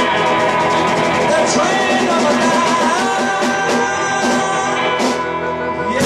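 Live blues band playing: amplified harmonica holding long notes over hollow-body electric guitar and a drum kit.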